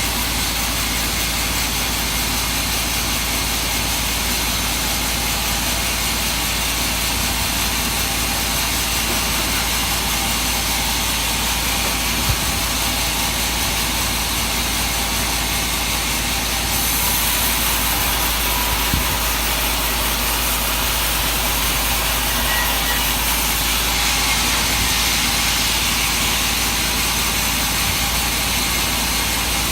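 Sawmill running steadily. About halfway through, the sound turns brighter and harsher for around ten seconds, then settles back.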